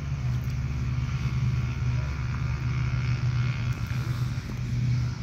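An engine running steadily: a low, even drone.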